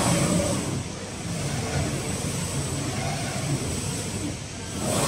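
The gantry drive of an AccTek AKJ1530F fiber laser cutting machine traversing the cutting head rapidly along the empty bed, with a steady mechanical running sound and a thin high whine. The sound swells briefly near the end as the gantry speeds up or reverses.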